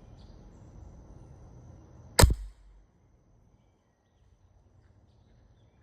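A single sharp BB gun shot about two seconds in, fired into a stack of notebook paper, over a faint low rumble that dies away after it.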